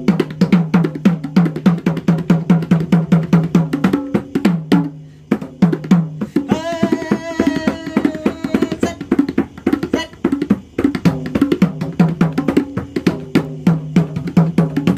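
Madal, the Nepali two-headed barrel drum, played by hand in a fast, steady rhythm: deep ringing bass strokes alternate with sharper slaps. The drumming eases briefly about five seconds in, and a held higher tone sounds over it from about six and a half to nine seconds in.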